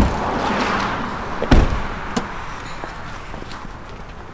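SUV doors being shut: a few sharp thuds, the loudest about a second and a half in, over steady outdoor background noise.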